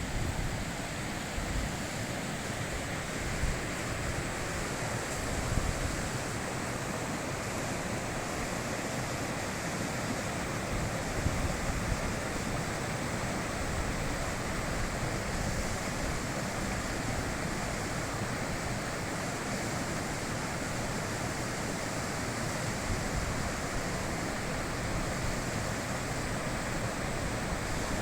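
High-mountain river rushing steadily over its bed: a continuous, even wash of water noise, with a few slightly louder surges in the first dozen seconds.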